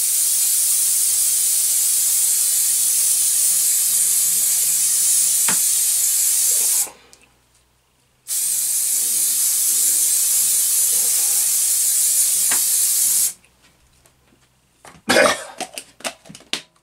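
Aerosol can of silicone release spray hissing in two long blasts, the first about seven seconds and the second about five, with a short pause between. A few sharp knocks near the end.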